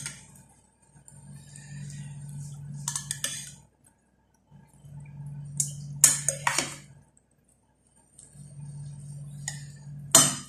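Metal serving spoons scooping biryani rice from a ceramic dish, with a few sharp clinks of metal on ceramic, the loudest near the end, over a steady low hum or music in the background.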